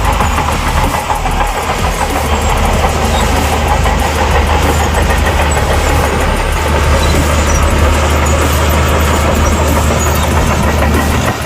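Shantui crawler bulldozer's diesel engine running steadily.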